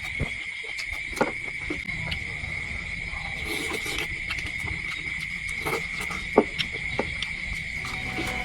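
A steady, high-pitched insect drone, with scattered sharp clicks and knocks over it, the loudest about six seconds in.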